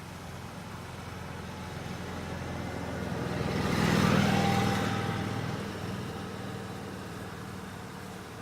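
A road vehicle driving past: its tyre and engine noise swells to a peak about four seconds in, then fades away.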